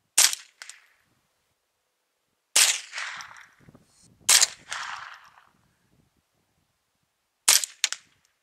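Four single shots from a custom Ruger semi-auto .22 LR rifle with a Volquartsen barrel, fired a couple of seconds apart. Each is a sharp crack with a short fading tail.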